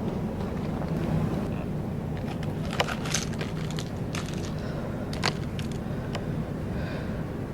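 Eating sounds: a few crisp crackles and crunches from rice-paper snacks being bitten and chewed, clustered in the middle, over a steady low hum.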